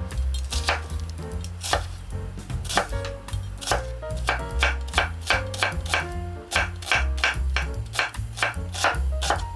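Knife chopping vegetables on a cutting board in quick, uneven strokes that come faster in the second half, over background music with a bass line.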